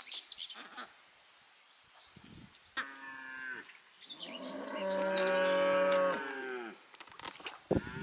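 Cow mooing: a short call about three seconds in, then one long, low moo of about two and a half seconds that drops in pitch at its end.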